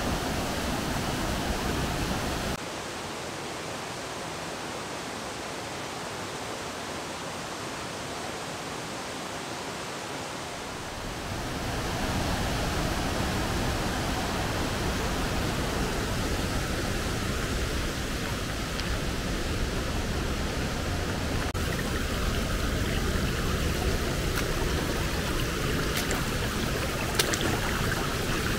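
Steady, loud rushing of a waterfall and stream. It drops abruptly to a lower level about two seconds in and comes back up about twelve seconds in.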